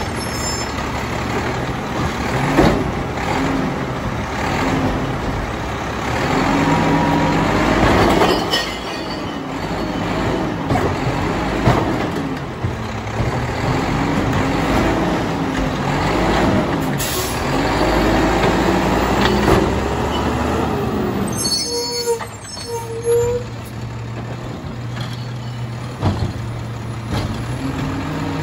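Mack LEU garbage truck's engine revved hard and let fall again and again while the McNeilus MA side loader's hydraulic arm lifts and dumps carts, with metallic clanks from the arm and cart. Its air brakes hiss about three-quarters of the way through, then the engine runs at a steadier speed.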